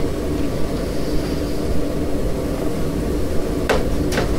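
Steady low background rumble with a faint constant hum, with two brief soft sounds near the end.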